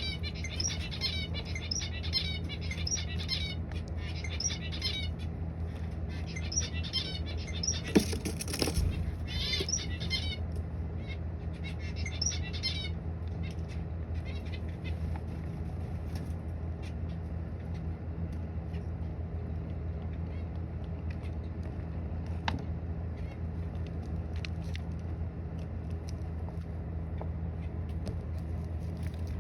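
Small birds chirping in quick repeated phrases, thinning out after about 13 seconds, over a steady low hum. About 8 seconds in there is a brief loud rustle.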